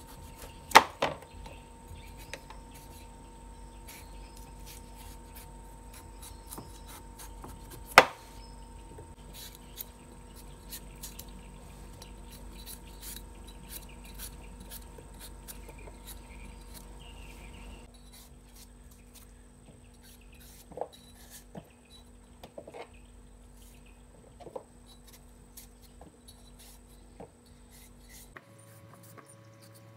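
Kitchen knife peeling the skin off a green-skinned vegetable over a plastic cutting board: light repeated scraping and small clicks of the blade, with two sharp knocks on the board, one about a second in and one about eight seconds in. A faint steady hum runs underneath.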